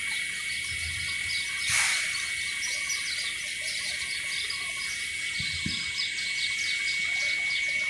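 Small birds chirping over and over over a steady high-pitched whine, with a brief rush of noise about two seconds in.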